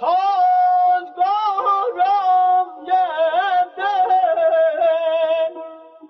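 A man singing Persian classical avaz in high, short phrases with wavering tahrir ornaments, a brief break between phrases. The last phrase fades out near the end.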